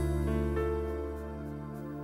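Soft instrumental background music of sustained, held notes, growing quieter through the second half.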